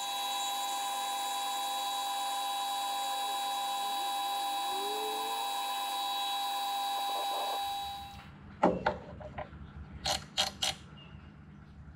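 Metal lathe running with a steady whine while taking a turning cut on a metal bar, shutting off about eight seconds in. A few sharp clicks and knocks follow as a micrometer is put on the work.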